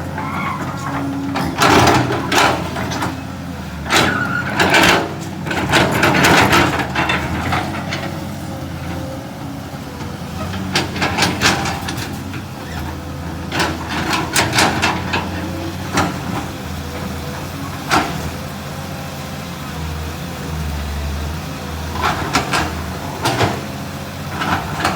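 Excavator engine running steadily under load, with repeated sharp cracks and knocks, some in quick clusters, as it pries out eucalyptus stumps.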